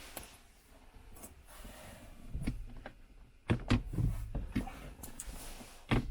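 A series of light clicks and knocks at irregular intervals, the loudest about three and a half seconds in and just before the end.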